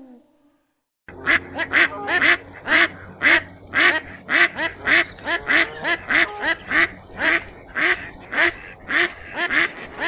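A rapid series of loud animal calls, about two a second, starting after about a second of silence and running on steadily, some calls overlapping.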